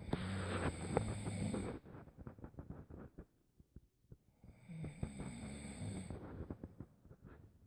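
Snoring: two snores, each about a second and a half long with a low buzzing tone and a fluttery rattle, one at the start and one about five seconds in, with a quieter stretch between them.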